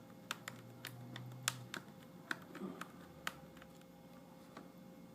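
Irregular small clicks and taps of a screwdriver, screws and hands on a laptop's plastic casing while screws are put back in, about ten in the first three seconds and fewer after.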